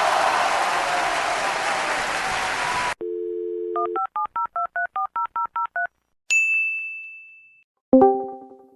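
A string of sound-effect clips: a steady noisy hiss cuts off suddenly, then a telephone dial tone for about a second, followed by about a dozen quick touch-tone dialing beeps. Then a single high ding rings out and fades, and a pitched struck note sounds near the end.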